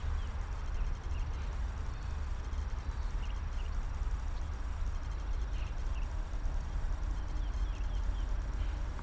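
Quiet outdoor ambience heard through a mic mounted inside a motorcycle helmet, engine off: a steady low rumble with scattered faint, short high bird chirps.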